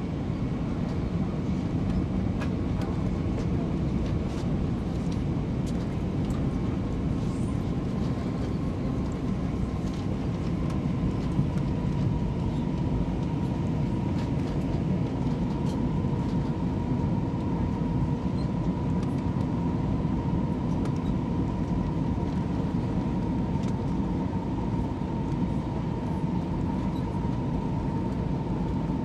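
Steady in-cabin noise of an Airbus A320-232 on descent: the low rumble of airflow and its IAE V2500 engines, with a steady whine that dips slightly in pitch about a third of the way in. A few faint ticks from the cabin.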